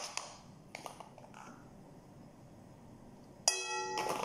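A few faint taps, then about three and a half seconds in a sharp clink against a glass mixing bowl, which rings with a bell-like tone that fades slowly.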